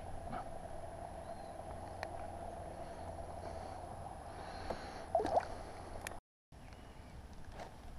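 Kayak paddling: quiet water gurgling and dripping off the paddle blades along the hull, with a few light knocks and a short louder sound about five seconds in. The sound drops out briefly at about six seconds.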